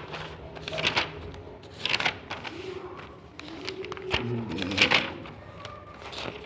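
Pages of a printed exam question booklet being turned, with several short paper rustles and flaps. The loudest come about a second in, two seconds in, and near five seconds in.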